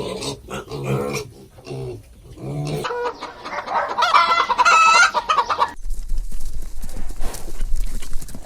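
Chickens clucking, then a rooster crowing in a long wavering call about three seconds in. A rougher, noisier stretch follows, and the sound cuts off abruptly at the end.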